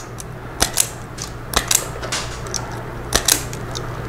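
Hand wire-stripping tool clicking as the ends of the amp wires are stripped: three sharp clicks or close pairs of clicks, about a second and a half apart.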